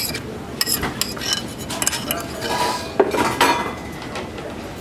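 Kitchen dishes and utensils clinking and knocking as they are handled, a string of sharp separate clinks.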